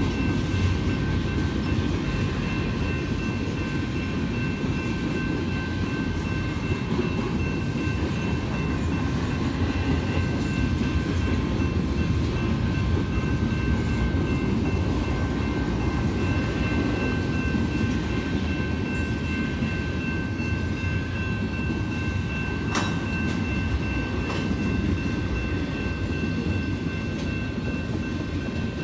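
Empty intermodal freight cars rolling steadily past at a grade crossing, a constant low rumble with clickety-clack of the wheels over the rail. Steady high tones ring over it throughout, and there is one sharp clank about 23 seconds in.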